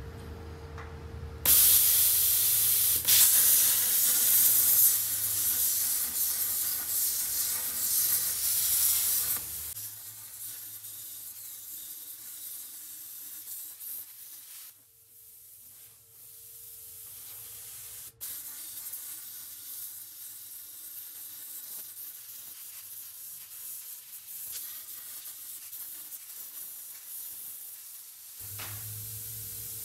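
Hand-held plasma cutter cutting through a steel exhaust Y-pipe, a steady hiss that starts loud about a second and a half in and drops to a lower hiss partway through.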